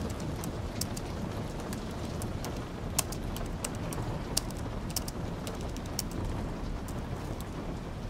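Typing on a slim low-profile keyboard: irregular sharp key clicks, a few a second, over steady rain.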